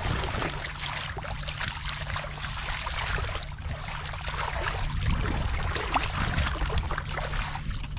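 Hands groping and sloshing through shallow muddy water: a continuous wet wash of small splashes and crackles, over a steady low rumble.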